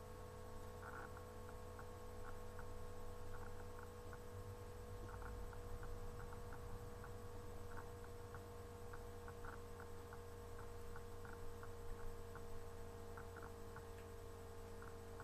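Faint mouth sounds of a person chewing a chewy marshmallow-filled chocolate cup, small irregular clicks over a steady low electrical hum.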